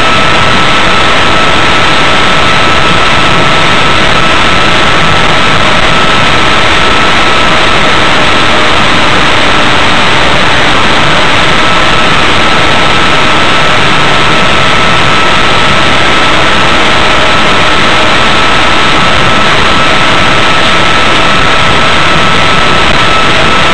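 Electric RC plane's Turnigy B2835 brushless motor and 4.75x4.75 propeller running at steady throttle, picked up by the onboard camera. It is a steady whine over a loud rushing noise, heavily saturated.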